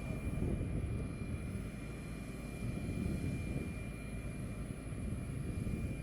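Aircraft noise: a steady low rumble with a thin, steady high-pitched whine over it.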